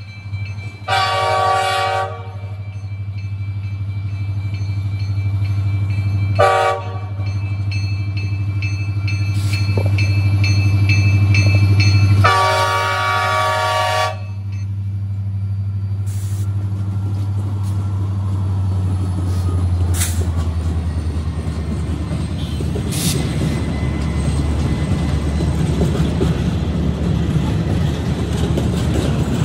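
Union Pacific diesel locomotives sounding a multi-tone air horn for a grade crossing: a long blast, a short one, then a longer one, over the steady drone of the engines. After the last blast the train rolls past, a loud, rising rumble of wheels on rail.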